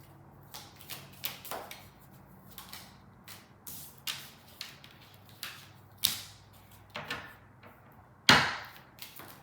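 Tarot cards being handled: an irregular run of short slaps and rustles, with one louder slap near the end.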